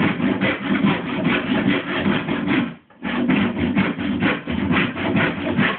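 Hand saw cutting through wood in quick, rhythmic back-and-forth strokes, with a brief pause about three seconds in before the sawing resumes.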